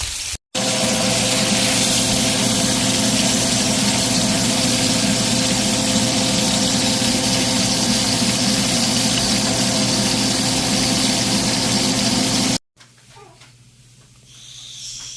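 Steady machine hum with a constant whine over a hiss, from a motor running without change, that cuts off suddenly. After it, in the quiet, a cat meows faintly near the end.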